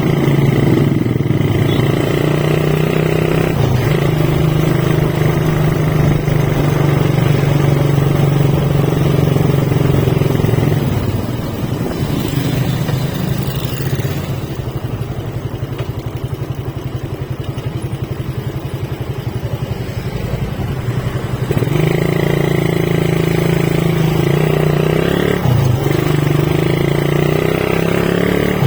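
Motorcycle engine running while riding. About eleven seconds in the engine note drops to a lower, slower pulse for around ten seconds, then picks back up.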